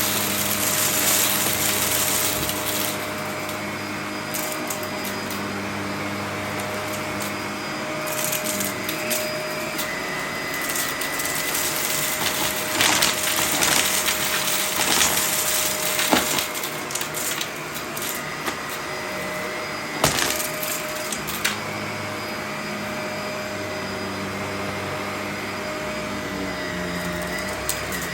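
Vacuum cleaner running steadily, its motor hum with a steady whine shifting a little in level as it is worked, with a few sharp clicks and rattles in the middle.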